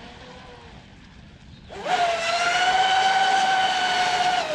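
RC catamaran speedboat's battery-powered electric motor and propeller punched to full throttle: a high whine rises sharply about two seconds in, holds steady and loud, then starts to fall away near the end.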